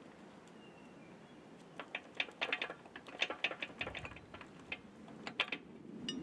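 A quick, irregular run of light clicks and taps begins about two seconds in and lasts about three seconds. It sounds like small hard parts being handled.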